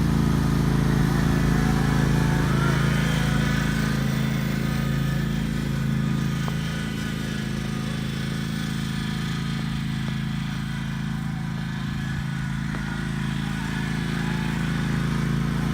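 Lawn mower engine running steadily, dipping a little in loudness in the middle and rising again near the end.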